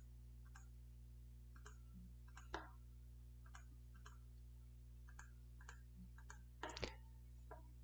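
Faint computer mouse clicks, about a dozen at irregular intervals, as vector lines are selected one by one in CAD software, over a low steady hum.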